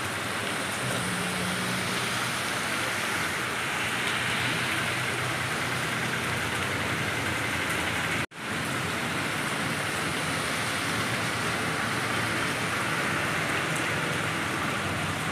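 Heavy rain falling steadily on a wet road, a hiss that drops out for an instant about eight seconds in.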